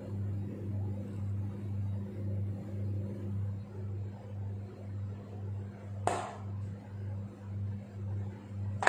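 A steady low electrical hum pulsing about twice a second, with a sharp tap about six seconds in and another at the very end.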